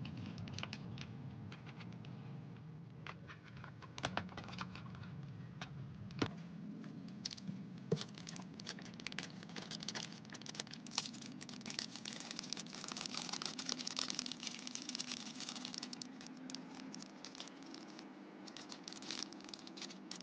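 Packaging crinkling and tearing under handling, with irregular scratchy clicks that grow densest in the middle.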